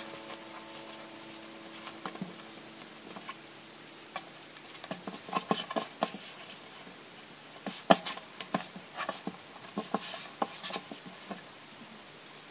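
Cotton fabric rustling as hands turn it and pat and smooth it flat on a wooden table: short, irregular scrapes and taps, busiest in the middle.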